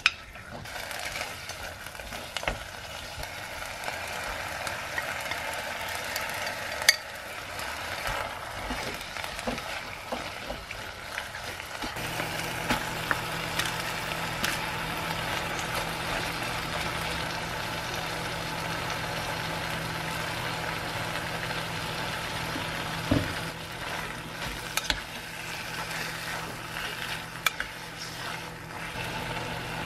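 Kimchi frying in sesame oil in a pot, sizzling steadily as a wooden spatula stirs it, with occasional knocks of the spatula against the pot; raw pork is added and stirred in. A steady low hum comes in about twelve seconds in.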